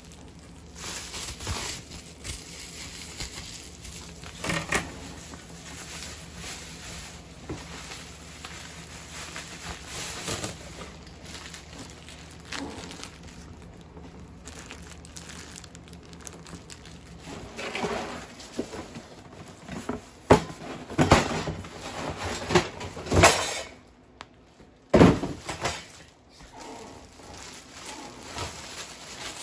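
Bubble wrap and plastic packaging crinkling and rustling as kitchen items are unwrapped and handled, in irregular bursts with a cluster of louder sharp crackles about two-thirds of the way through.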